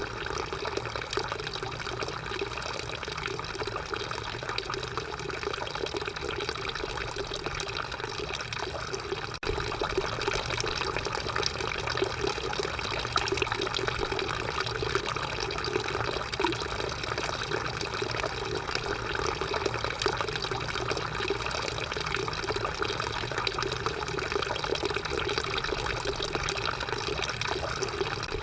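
Drinking fountain running, a steady stream of water splashing into the basin; it gets a little louder about a third of the way through.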